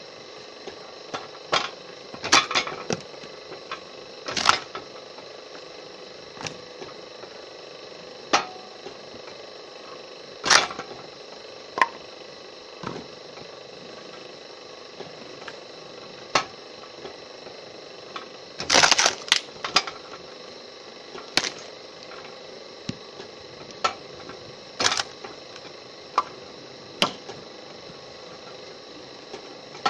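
Homemade firewood saw-splitter humming steadily while wood blocks knock and clatter against its steel frame, a dozen or so sharp knocks at irregular intervals, several bunched together about two-thirds of the way through.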